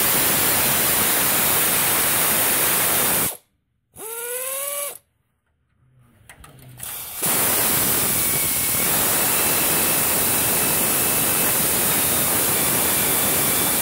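Pneumatic air ratchet running in loud hissing bursts as it spins off the 12 mm nuts on the exhaust stay bracket. It runs for about three seconds, then a short burst with a rising whine, and after a pause a long run of about seven seconds.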